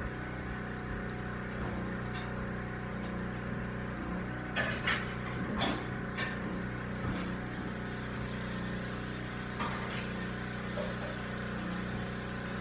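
Steady low hum of a running machine, with a few brief faint noises about halfway through.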